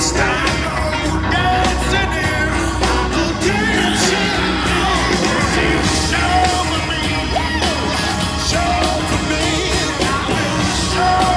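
Live rock band playing at full volume, with singing and some yelled vocal lines over the music.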